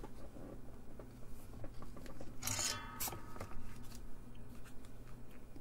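Bench handling noise while soldering: a short scraping rattle about halfway through as the soldering iron and solder wire are taken up, over a low steady hum.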